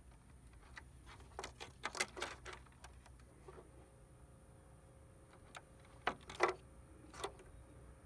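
Light clicks and taps of wires and fingers against a plastic scooter body panel during handling of the wiring: a cluster about one and a half to two and a half seconds in, and a few sharper ones around six seconds in and once more a second later.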